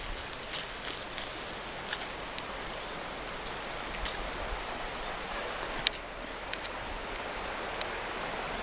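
Outdoor ambience: the steady rush of a small creek under a thin, steady high insect drone, with a few sharp snaps from footsteps on twigs from about six seconds in.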